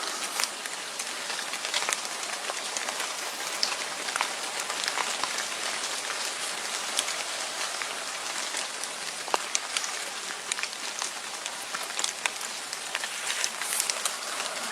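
A steady patter and hiss with many small sharp ticks throughout, like rain falling on a surface.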